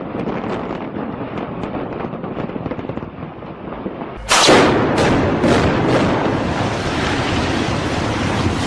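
Building demolition by explosives: a rumble with faint crackling, then about four seconds in a sudden loud blast and a few sharp bangs, followed by a long rumble of the collapse.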